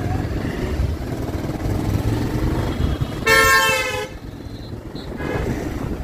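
Steady road traffic rumble, with one short, loud vehicle horn blast a little past halfway.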